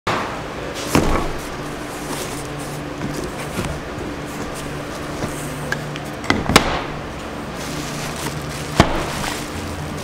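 Cardboard box set down on a table with a thump about a second in, then unpacked: flaps, paper and bubble wrap rustling and crinkling, with a few sharp knocks as parts are handled, the loudest about two-thirds of the way through.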